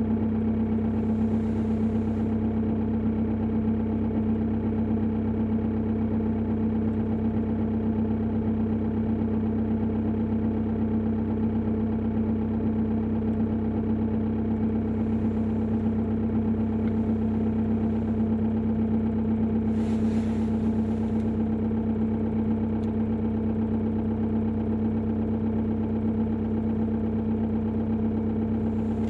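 Opel Insignia 2.0 diesel engine idling steadily with the knock it makes at idle.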